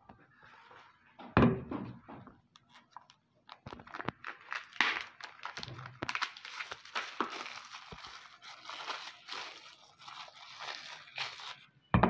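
Soap bar's printed wrapper crinkling as it is peeled off by hand, with a thud about a second in and another near the end.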